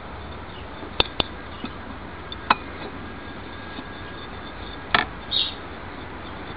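A thin mixing tool clicking against a porcelain plate as acrylic paint is stirred on it: a few sharp, separate clicks, the last followed by a short scrape, over a steady hiss.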